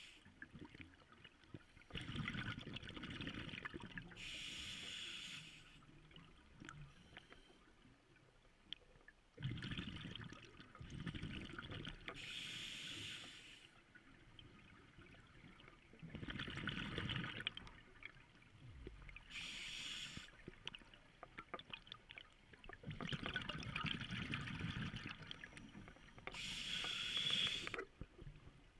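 Scuba diver breathing through a regulator underwater: four slow breaths about seven seconds apart, each a hiss followed by a spell of bubbling as the breath is let out.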